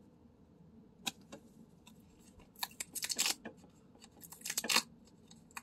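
Stiff paper pull-tab lottery cards being handled, crisp crackling and rustling in short bursts: once about a second in, then a longer cluster in the middle and another shortly before the end.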